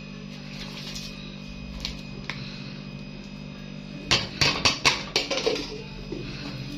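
Kitchen clatter: a quick run of sharp knocks about four seconds in, a plastic plate and a wooden spoon hitting a stainless steel cooking pot as fried onions are tipped in. A steady low hum runs underneath.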